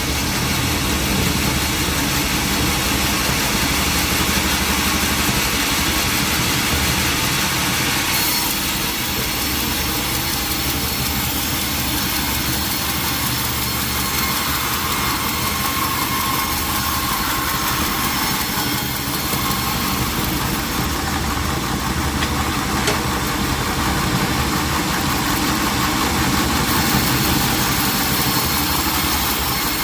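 Sawmill machinery running steadily, an engine droning under a dense hiss, its sound shifting about eight seconds in.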